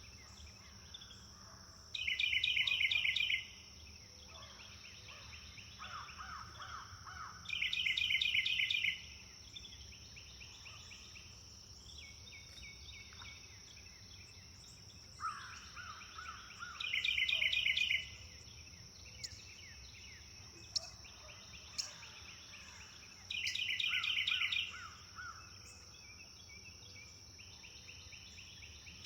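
Songbirds singing: one bird repeats a loud, fast, buzzy song phrase about every six seconds, answered by a softer, lower trill and a few short sharp chirps. A steady high-pitched hiss and a low rumble sit under the song throughout.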